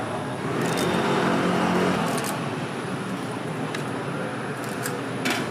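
Street traffic noise, with a motor vehicle's engine passing, loudest for about the first two seconds, and a few sharp metallic clicks.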